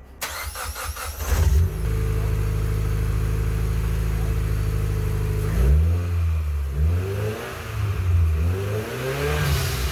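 A Mitsubishi 4B11T turbocharged four-cylinder engine fires up about a second and a half in and idles steadily. From about halfway through it is revved repeatedly, the pitch rising and falling with each blip.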